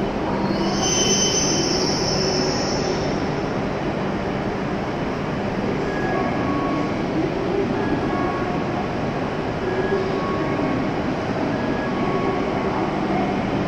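W7-series Shinkansen train running slowly into the platform and coming to a stop, with a high brake squeal a second or two in. Then the standing train's steady hum and fan noise carry on, with short faint beeps repeating about every two seconds.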